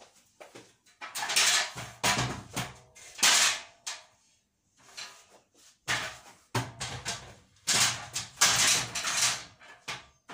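Aluminium step ladder being lifted, shifted and set down, rattling and scraping against the floor in two spells of clattering with a short lull between them.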